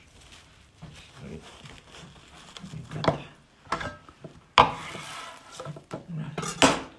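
Clear plastic cling film being pulled, torn and crinkled by hand: a few sharp rustles, with the loudest rip about four and a half seconds in and another near the end.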